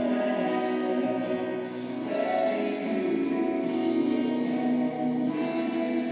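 A worship song playing: strummed acoustic guitar with singing.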